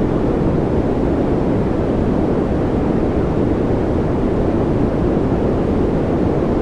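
Steady relaxation noise track: an even, unchanging hush with most of its weight low, a deep rush rather than a bright hiss.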